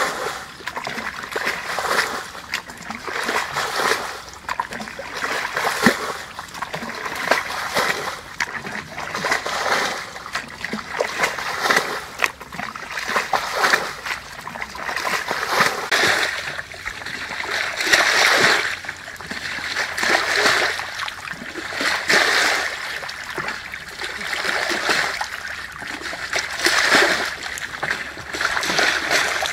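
Water splashing and sloshing as a bucket on a bamboo lever pole is dipped into a muddy canal and emptied over and over, with a rush of water about every two seconds.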